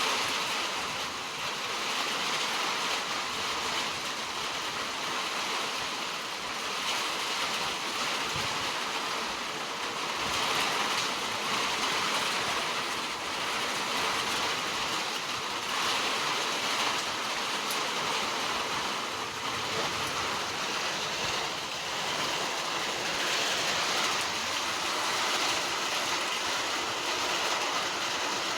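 125cc pit bike's single-cylinder engine running steadily, a dense mechanical noise with small swells, just after its valve clearances were reset to 0.05 mm intake and 0.10 mm exhaust. The owner still finds its running strange and is chasing sneezing back through the intake.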